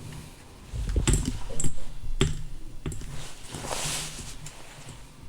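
Handling noises of a plastic airsoft gas pistol: a few sharp clicks and knocks about a second in, again near two and three seconds, then a brief hiss near four seconds.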